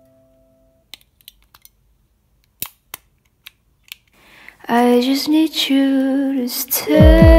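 A few light plastic clicks and taps as AA batteries are pressed into a remote control's battery compartment. Background music with singing comes in a little past halfway and is the loudest sound.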